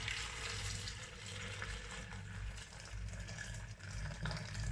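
Strained lemon and mint juice being poured into a blender jar over avocado, a steady splashing pour.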